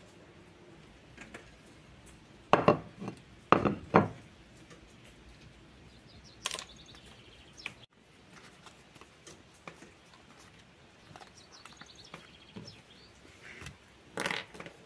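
Small hard objects knocking on a wooden tabletop as they are put down and handled: a quick run of five sharp knocks about two and a half to four seconds in, a single knock a little later and a short cluster near the end, with quiet stretches between.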